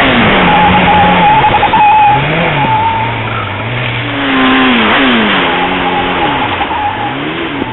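2002 Yamaha R1's inline-four engine on track, its revs falling and climbing again several times through gear changes, over heavy wind noise on the onboard microphone.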